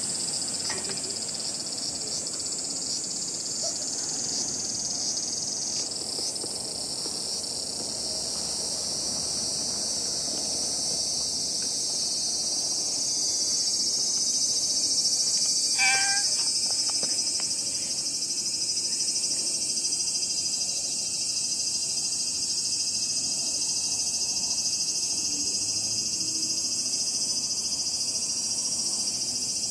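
A steady, high chorus of insects shrilling in the grass and trees, with one short pitched call about sixteen seconds in.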